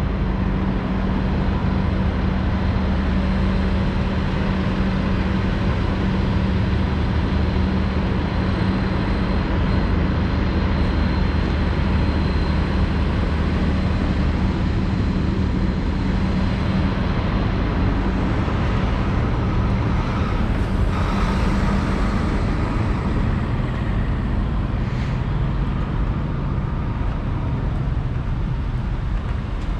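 Steady low engine hum of idling vehicles over general traffic noise. The hum fades about halfway through, and a swell of noise like a vehicle passing comes around two-thirds of the way in.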